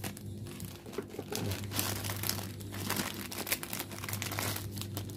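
Plastic instant-noodle packet crinkling and rustling as it is cut with scissors and pulled open by hand, with a steady low hum underneath.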